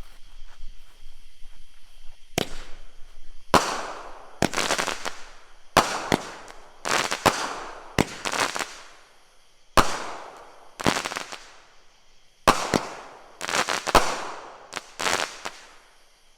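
A 200-gram six-shot consumer firework cake firing: a run of sharp launch thumps and aerial bursts starting about two seconds in, each report trailing off in a fading tail, the shots coming every second or two.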